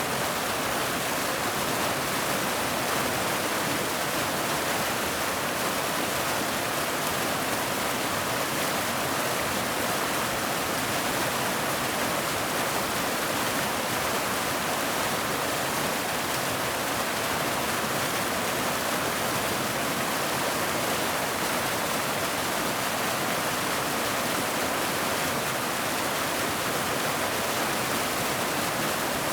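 Waterfall: falling water in a steady, unbroken rush that stays the same throughout.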